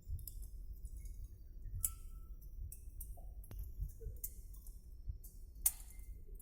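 Low, steady rumble inside an airliner's cabin, with a few sharp clicks and rattles scattered through it.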